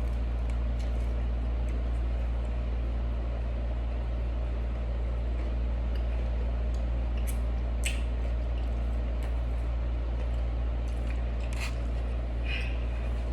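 Someone eating: wet chewing and a few short mouth clicks over a steady low hum.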